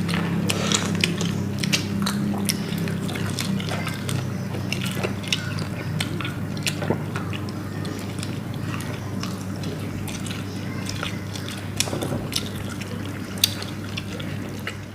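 Eating sounds picked up up close: many quick wet clicks and smacks of chewing, over a steady low hum.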